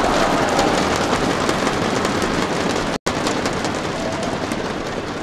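Crowd applauding and cheering after a point is won in a badminton rally: dense clapping that swells at the start and slowly fades, broken by a split-second dropout about three seconds in.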